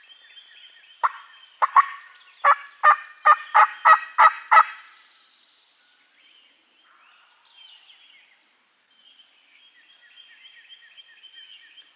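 A run of loud turkey yelps: two single notes, then about eight evenly spaced yelps in roughly two seconds, ending about five seconds in. A small songbird sings a high chattering phrase over the start of the run, and faint birdsong follows.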